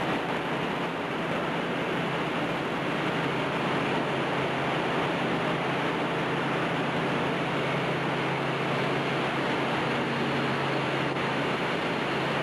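Press-line conveyor and the surrounding factory machinery running: a steady, even noise with a low steady hum underneath.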